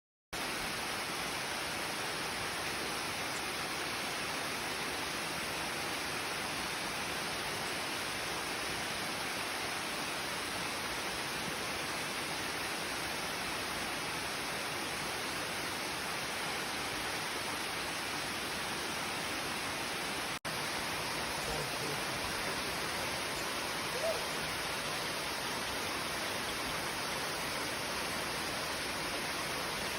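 Waterfall's falling water, a steady even rush that cuts in just after the start and drops out for an instant about two-thirds of the way through.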